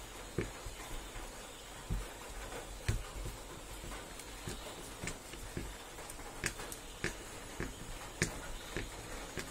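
Screwdriver working the centre screw out of a chainsaw recoil starter pulley: irregular small clicks and taps of the tool against the screw and pulley.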